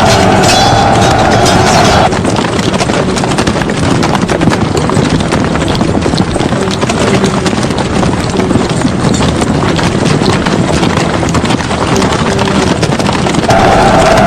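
Battle sound effect of many horses galloping, a dense, continuous clatter of hooves. A held tone sounds over it for the first two seconds and comes back near the end.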